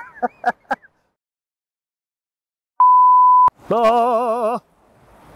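A single steady electronic bleep tone lasting under a second, the loudest sound here, followed by a man singing one long held note with a strong wavering vibrato. A few short clipped voice sounds come in the first second, before a stretch of dead silence.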